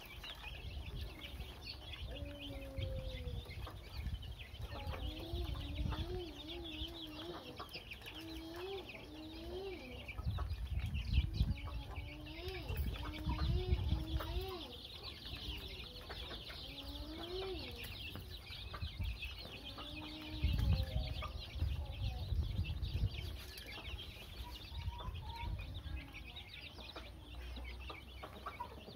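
A flock of young chicks peeping continuously in high, chirping calls while they feed, with lower, wavering calls now and then. Low rumbles swell twice, about a third of the way in and again about two-thirds through.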